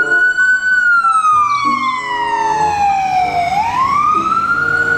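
Ambulance electronic siren sounding a slow wail: the pitch holds high, falls slowly for about three seconds, then rises again near the end.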